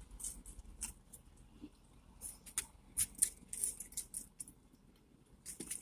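Close-up eating sounds of someone chewing a burger: a scatter of short, crisp clicks and crackles, thickest in the middle.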